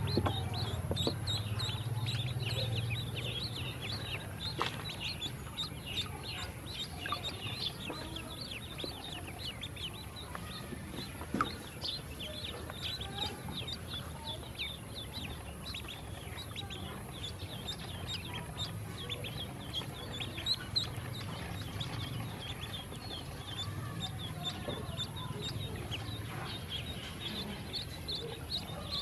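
A group of ducklings peeping nonstop, many short high chirps overlapping one another.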